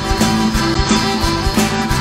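Live folk-rock band playing an instrumental passage: strummed acoustic guitar over a steady drum beat.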